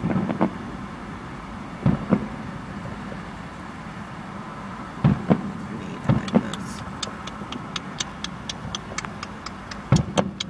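Fireworks shells bursting in deep booms, often in quick pairs. From about six seconds in comes a rapid run of sharp crackles, about four a second, as the burst stars themselves explode, then more booms near the end.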